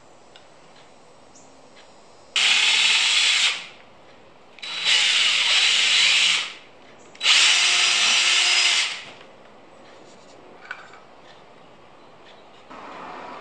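DeWalt compact cordless drill boring into an end-grain wood block, run in three bursts of one to two seconds each with short pauses between.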